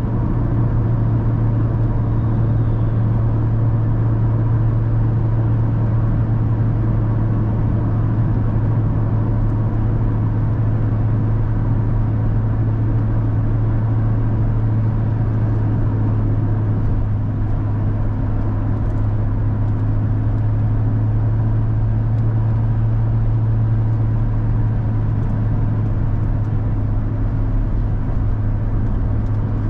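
Car driving at a steady speed: a constant low drone of engine and road noise that does not change.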